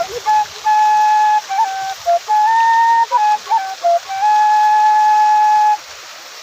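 A flute-like melody of single clear notes stepping up and down in pitch, some held for over a second, over a steady hiss.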